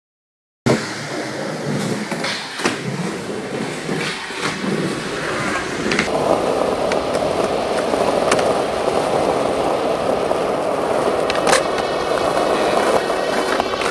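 Skateboard wheels rolling over asphalt, a steady gritty rumble that gets louder and denser about six seconds in, with a few sharp clacks.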